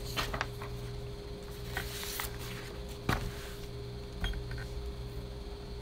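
A few light clicks and knocks, the loudest about three seconds in, over a steady faint hum.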